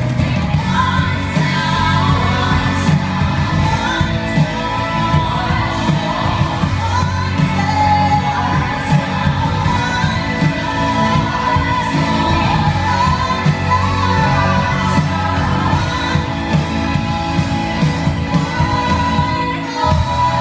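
Live worship band music: singers over drums and keyboards, with a steady beat.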